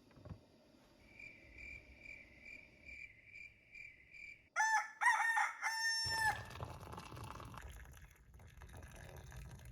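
Rooster crowing once, a cock-a-doodle-doo in three parts ending on a long held note, about four and a half seconds in. Before it, a faint high chirp repeats about twice a second.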